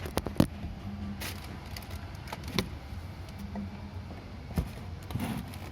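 Handling noise of a car amplifier being picked up and turned over: a few sharp clicks and knocks, the loudest about half a second in, over a steady low hum.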